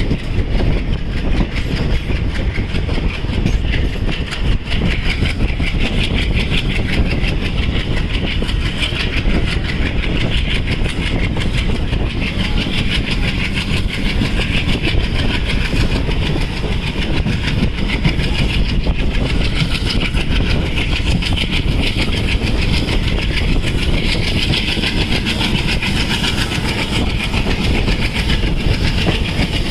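Passenger train coach running along the track: a steady rumble of wheels on rail with a constant scatter of small clicks.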